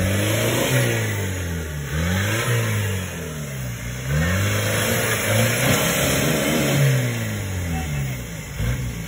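Off-road 4x4's engine revving up and down again and again, its pitch rising and falling in quick repeated swings as the throttle is worked.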